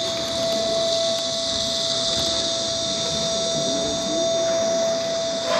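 Steady loud electronic hiss with a single held tone beneath it, a sound score played over the stage speakers.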